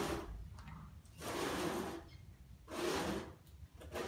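Close breathing, a soft rushing breath about every second and a half.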